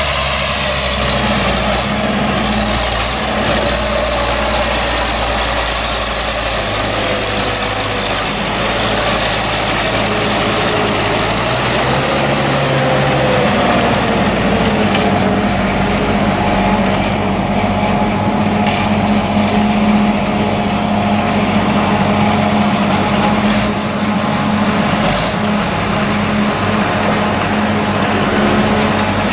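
Diesel tractor engines running steadily under work in corn silage harvesting, with a high whine above the engine sound; the engine pitch shifts about halfway through.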